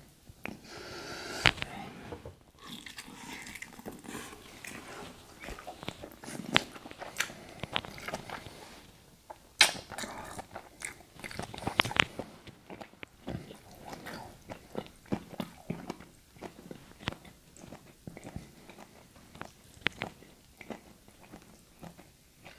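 Close-miked eating sounds of a man chewing and biting seafood boil dipped in butter sauce, with many irregular sharp clicks.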